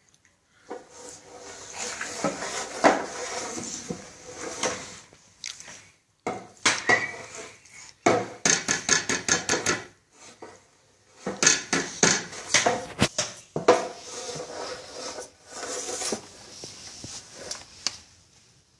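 Plastic baby walker and a toy cricket bat clattering and knocking on a tiled floor, with bursts of quick rattling about eight seconds in and again after eleven seconds.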